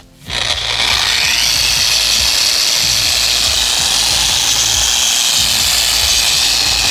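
Rupes LHR 21 random orbital polisher starting up about a third of a second in and running steadily on its lowest speed, a microfiber towel over the pad, buffing sealant off a boat hull.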